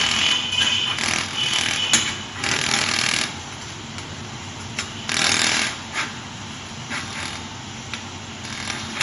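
Welding machine working in short bursts of buzzing hiss: a long stretch in the first three seconds, another brief one about five seconds in, with scattered clicks between.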